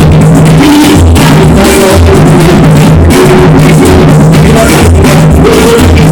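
Very loud live samba-reggae band music, with a steady bass line and deep drums beating about twice a second.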